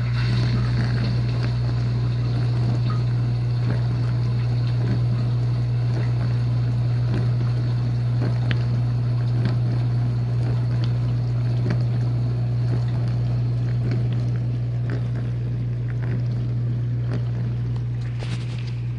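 Whirlpool dishwasher's wash pump running with a steady low hum, spraying water around the inside of the tub, with scattered light ticks.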